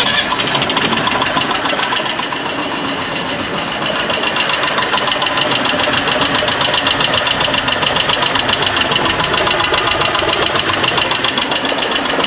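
Mazda T600's air-cooled V-twin engine running at a steady idle, just started after its cylinder head gasket was replaced with a homemade copper gasket to cure a gas leak.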